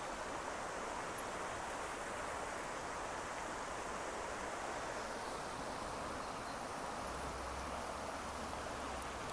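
Stream water running in a steady, even rush.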